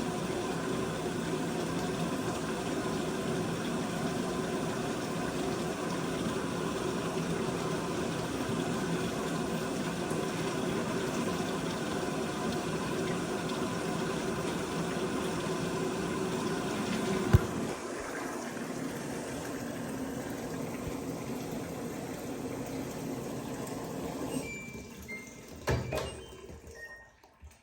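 LG WT16WV6 16 kg top-loading washing machine filling its drum with water: a steady rush with a faint hum. About 17 seconds in there is a click and the sound drops to a softer steady noise, which stops about 24 seconds in, followed by a couple of knocks.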